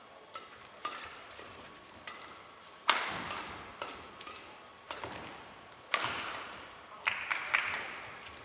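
Badminton rally: rackets striking the shuttlecock in a run of sharp smacks, roughly one a second. The hardest hits, likely smashes, come about three and six seconds in, and each hit rings on in a large hall.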